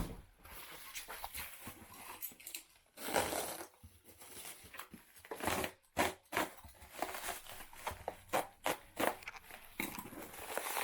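Parcel packaging being torn open and unwrapped by hand: irregular rustling, crinkling and short rips.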